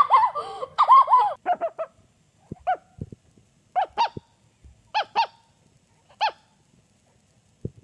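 Laughter for about the first second and a half. Then a sleeping puppy whimpering: short, high squeaky whimpers, about six of them, some in quick pairs, roughly a second apart.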